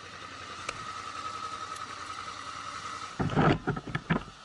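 Motorcycle engine running in street traffic, with a loud, rough burst of sound about three seconds in.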